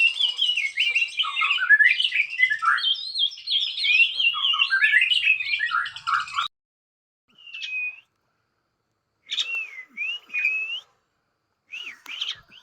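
Songbird singing a fast, varied run of chattering, warbling notes that cuts off abruptly about six and a half seconds in, followed by a few separate short whistled calls that dip and rise in pitch.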